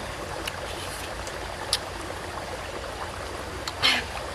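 Langsat fruit being peeled with the fingers and bitten into: a few short, crisp, juicy sounds, the loudest near the end as a piece goes into the mouth, with a short hum. Behind them runs a steady rushing like a stream.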